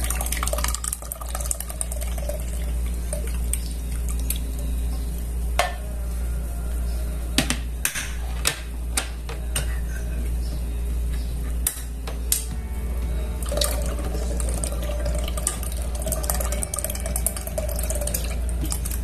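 Canned milk pouring into a stainless steel pot of liquid gelatin, with several sharp metal clinks against the pot around the middle, over a steady low hum.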